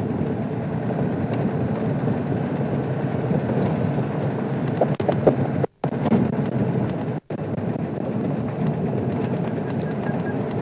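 Open 4x4 game-drive vehicle driving along a dirt track: steady engine and road rumble. The sound cuts out completely twice, briefly, a little past the middle.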